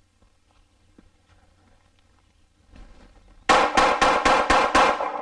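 Glock 42 .380 ACP pistol fired in a fast string of about seven shots, roughly five a second, starting about three and a half seconds in.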